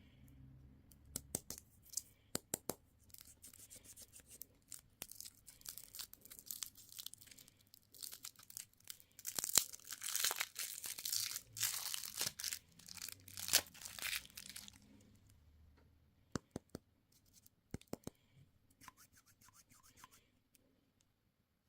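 A candy wrapper being torn open and crinkled, with a few sharp clicks first. Dense crackling builds to its loudest about ten seconds in, then thins out to scattered clicks near the end.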